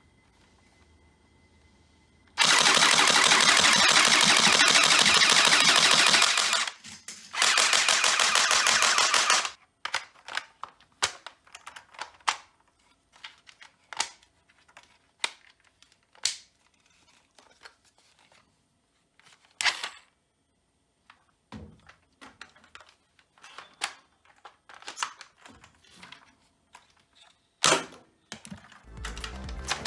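Toy M416 dart blaster firing on full auto: a dense rapid clatter about four seconds long, a short pause, then a second burst of about two seconds. Scattered sharp clicks and knocks follow, with one louder click near the end.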